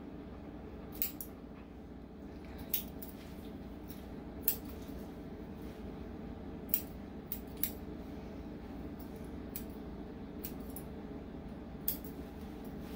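Grooming scissors snipping at irregular intervals, a dozen or so sharp snips, cutting mats out of thick matted dog fur. A steady low hum runs underneath.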